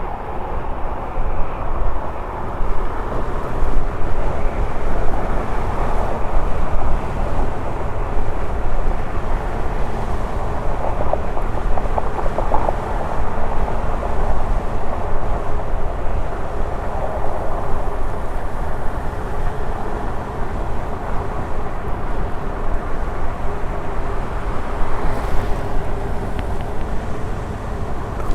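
Wind and road noise from riding an electric unicycle, with a faint steady hum from the wheel running along.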